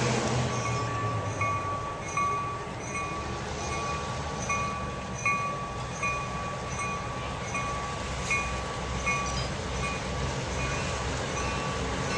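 A bell ringing steadily at about two strokes a second, over the low rumble of an approaching EMD E5 diesel locomotive.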